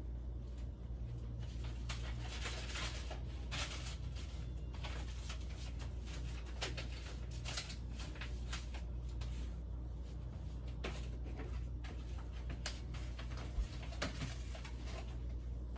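Chicken and mushrooms cooking in a lidded pan on the stove, heating toward a boil, with irregular sizzling crackles over a steady low hum.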